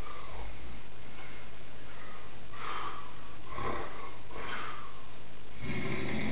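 A sleeping dog snoring and snuffling: a few short breathy snorts from about the middle, and a fuller, deeper one near the end.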